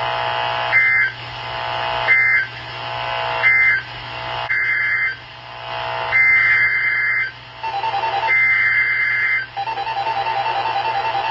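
Emergency Alert System (SAME) digital data bursts on NOAA Weather Radio, a harsh two-tone warble. Three short end-of-message bursts about a second apart close the previous warning, then three longer header bursts announce the next one. A rapid beeping comes in twice near the end.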